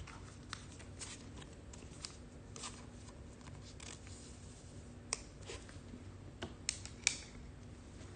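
Trading cards being handled: faint scattered ticks and rustles of the cards, with a few sharper clicks in the second half.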